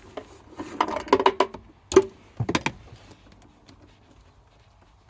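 Clattering knocks and scrapes of a car battery and its hold-down being shifted by hand in the battery tray, in three short bursts over about two seconds.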